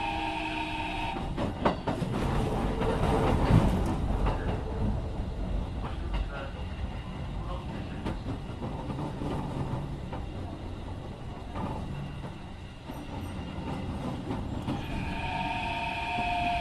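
Running sound of a Keikyu 1500 series electric train with Mitsubishi IGBT-VVVF inverter, heard aboard the car. The inverter's steady whine cuts out about a second in. The train then runs on with wheel-and-rail rumble and a few clacks. Near the end the inverter tone comes back, dipping slightly in pitch.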